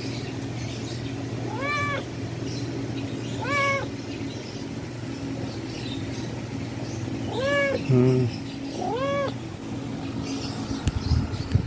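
Tabby cat meowing four times: short calls that rise and fall in pitch, spaced a few seconds apart. A steady low hum runs underneath.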